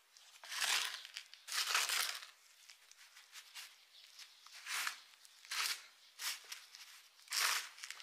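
Gloved hands squeezing and packing a gritty soil mix into a clump, making a series of short rustling scrunches, the loudest two in the first couple of seconds and several softer ones after.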